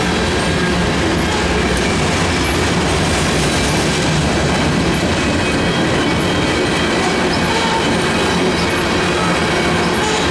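Freight cars of a Canadian National train rolling steadily past, loud and close, their wheels clicking over the rail joints, with faint thin squeals from the wheels.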